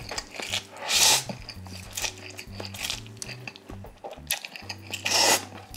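Slurping spicy instant cup noodles off chopsticks: two loud slurps, about a second in and near the end.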